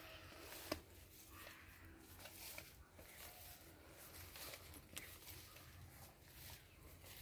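Near silence: faint rustling and a few light clicks, the sharpest click less than a second in.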